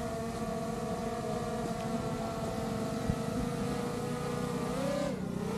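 DJI Mini 4 Pro drone's propellers whining steadily as it flies. About five seconds in, the pitch dips and comes back up as the motors change speed. A single click about three seconds in.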